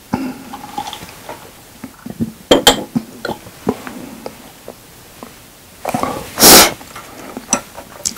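Eating-table sounds from a person at a meal: a couple of light clicks of glass or tableware about two and a half seconds in, then a loud, short burst of breath from the eater about six seconds in.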